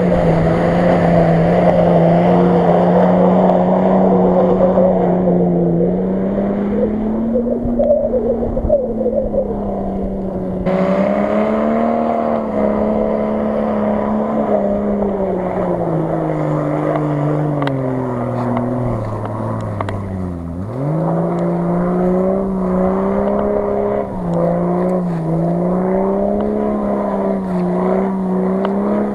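Off-road 4x4 engines running hard through deep mud, the revs rising and falling as the drivers work the throttle. About ten seconds in the sound changes abruptly to another vehicle, whose revs dip sharply and climb again about twenty seconds in.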